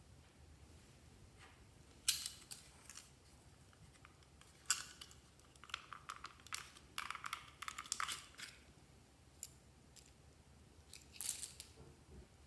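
Slime being worked by hand, giving short crackly, sticky noises in scattered bursts, busiest a little past the middle.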